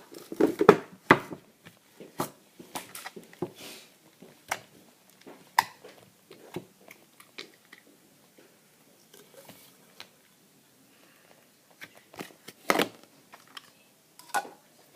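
Slime being squeezed and poked by hand, making irregular wet clicks and pops. The pops come thickly at first, thin out in the middle, and the loudest come about three-quarters of the way through.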